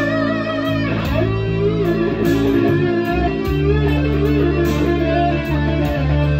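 Electric guitar playing a slow lead melody with wavering, vibrato-laden held notes over a slow, sad rock ballad backing track in D minor, with held bass notes and a steady drum beat with cymbal hits.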